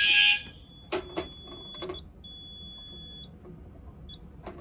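A fire alarm sounder gives one last loud pulse of about half a second, then stops. A few sharp clicks follow, then a fainter, higher-pitched electronic beep lasting about a second, with a short chirp near the end.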